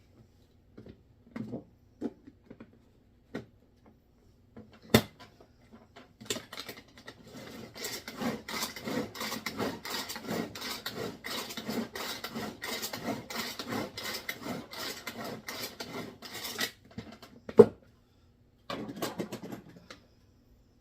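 Utensil scraping and stirring in a bowl as a cream cheese and minced ham filling is mixed. A few light knocks come first, then about ten seconds of rapid continuous scraping, one sharp knock, and a short last bout.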